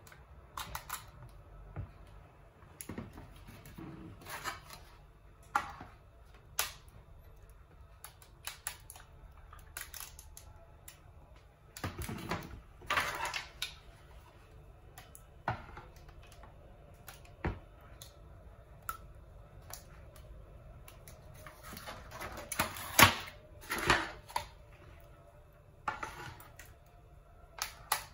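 Plastic ladle tapping and scraping against aluminium foil trays and a plastic mixing bowl while custard is ladled out, with foil trays knocking as they are handled. Scattered irregular clicks and knocks come in bunches about halfway and again later, and the loudest knock falls near the end.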